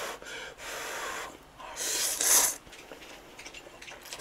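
Thick Ottogi Odongtong-myeon ramen noodles slurped up in three sucking pulls over the first two and a half seconds, the last the loudest, then quieter.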